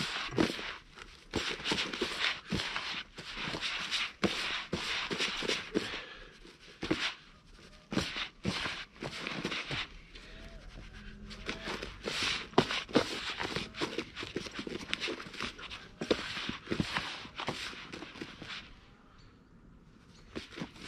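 Hands mixing and rubbing damp breadcrumb-based groundbait in a bowl: a run of irregular scratchy, rustling strokes that pause briefly about six and ten seconds in and tail off near the end.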